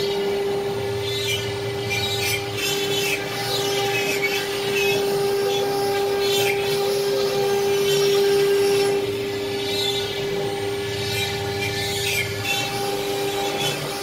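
CNC router spindle running under load at a steady high pitch while the bit engraves a pattern into a board. The cutting noise swells and fades as the head moves.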